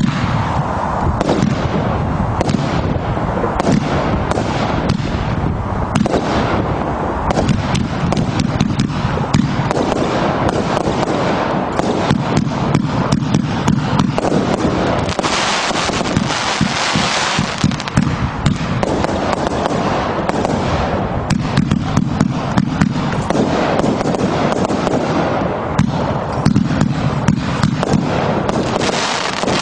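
Absolute Fireworks Essential 49-shot barrage cake firing fast, a steady run of shell launches and bursts one after another. About halfway through there are a few seconds of dense hiss.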